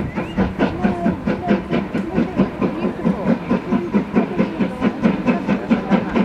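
Steam locomotive hauling a train of carriages toward the listener, its exhaust chuffing in a steady rhythm of about four beats a second.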